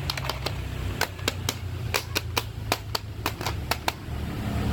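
Hard plastic toy figures clicking and knocking against each other and the plastic basket as they are handled: a string of sharp, irregular clicks, several a second, over a low steady hum.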